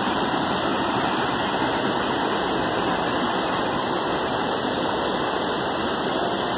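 River water flowing fast over rocks in shallow white-water rapids: a steady, even rush of water.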